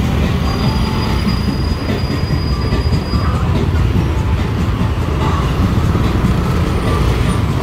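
Steady low rumble of idling motorcycles and street traffic. A thin high whine starts about half a second in and lasts about three seconds.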